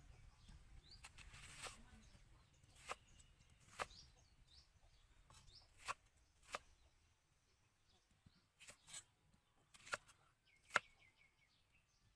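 Knife cutting a peeled onion on a thick round wooden chopping block: about eight sharp, irregular knocks as the blade goes through the onion and strikes the wood, the loudest near the end.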